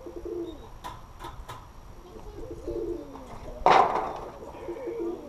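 Pigeons cooing, low rolling coos throughout. Three short clicks come about a second in, and a brief loud burst of noise, the loudest sound, comes just before four seconds.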